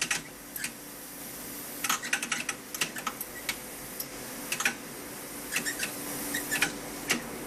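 Rapid light clicks in uneven clusters, several runs of them, over a faint steady hum.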